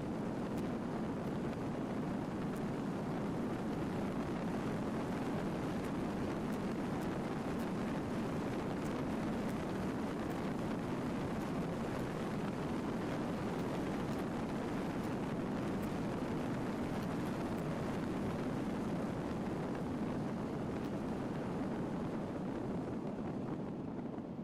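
Steady road noise of a vehicle driving on a gravel road: tyres rumbling over loose gravel with a few faint ticks, and no clear engine note.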